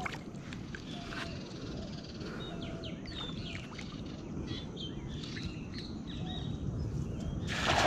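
Small birds chirping in short scattered calls over a steady low background rumble. Near the end, a cast net is thrown and lands spread across the water with a loud splash.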